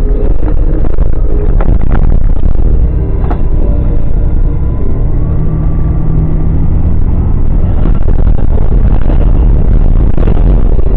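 Vehicle driving, heard from inside the cabin: a loud, steady low rumble of engine and road, with a few knocks in the first few seconds.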